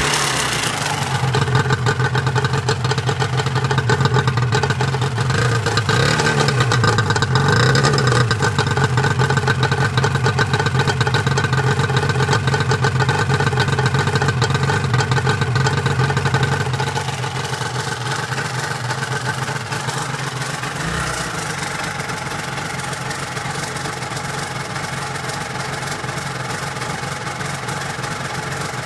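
Yamaha R1-Z's two-stroke parallel-twin engine idling, heard at its exhaust silencer, with the revs rising and falling briefly a couple of times near the start. The engine is on the verge of seizing a piston.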